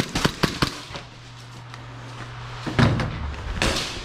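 Knocks and bumps against office furniture: a quick run of about four sharp clicks at the start, a heavy thump about three seconds in, then a brief scraping rustle.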